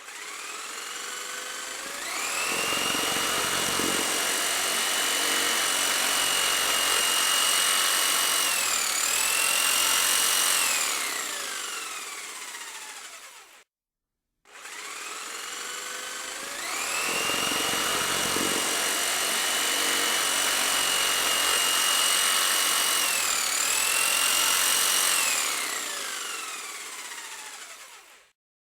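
Skil circular saw motor running free, twice: each time it spins up to a steady high whine, dips briefly and recovers, then winds down to a stop.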